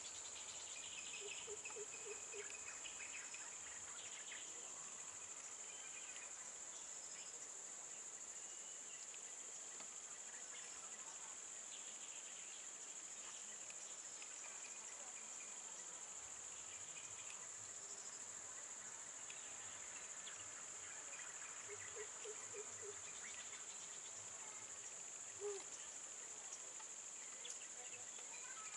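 A steady, high-pitched insect chorus, with scattered short bird chirps and a few brief low calls over it.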